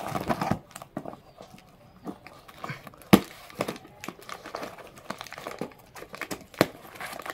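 Cardboard parcel being opened by hand: packing tape slit and torn and the box flaps pulled open, with crinkling and scraping of cardboard and tape. There are a few sharp clicks, the loudest about three seconds in.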